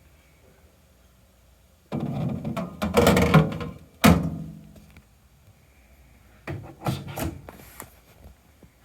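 A run of clattering knocks and clunks about two seconds in, then one sharp thunk that rings briefly, then a few lighter knocks near the end.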